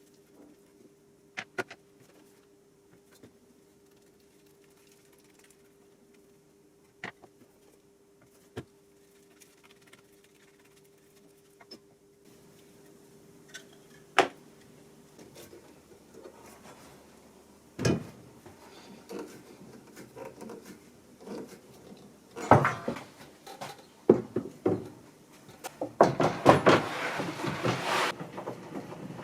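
Workshop handling sounds: scattered knocks and clicks over a faint steady hum. About halfway through the hum stops and the knocks come more often, and near the end they are joined by louder scraping and rubbing.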